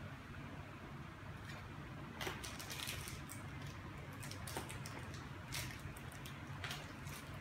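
Light, scattered plastic clicks and taps from fingers working at the Hubsan H501S quadcopter's plastic shell to open its battery compartment, over a low steady hum.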